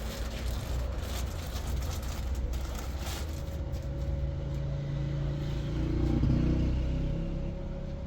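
An engine running with a steady low rumble; its pitch and loudness rise for a few seconds around six seconds in.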